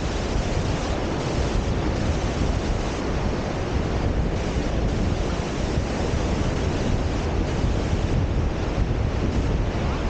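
Ocean surf breaking and washing up a sandy beach, mixed with wind buffeting the microphone as a steady low rumble.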